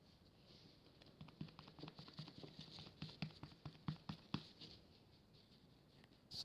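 Faint, irregular light tapping: about a dozen small taps over a few seconds, then quiet, with a faint steady hiss underneath.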